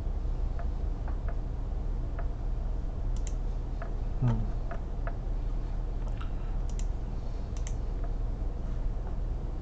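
Scattered computer mouse clicks and keyboard taps over a steady low hum, with a brief low voice sound about four seconds in.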